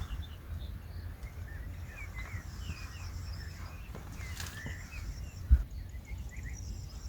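Scattered short bird chirps over a steady low rumble of outdoor background noise, with a single brief thump about five and a half seconds in.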